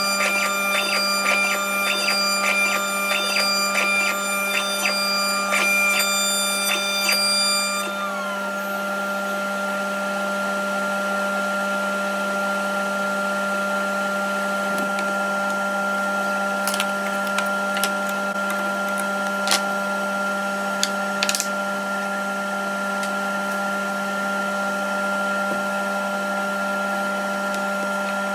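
CNC router spindle running steadily with a high, even whine while a dish bit cuts hardwood (sapele). Over roughly the first third a rapid, regular ticking rides on top and then stops with a falling tone, and a few sharp clicks come later on.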